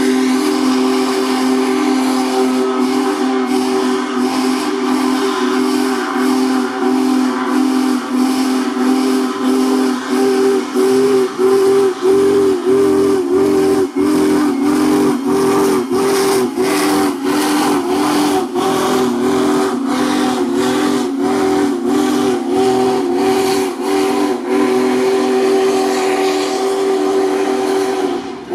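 Union Pacific Big Boy 4014's steam chime whistle sounding one long, nearly unbroken blast of several notes together, wavering in places, as a warning to people on and near the tracks. Hissing steam and a run of sharp beats from the moving locomotive lie beneath it.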